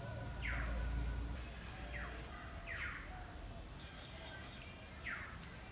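A bird calling: a short, downward-sweeping call given four times, with fainter chirps around it. A low rumble sits under the first second or so.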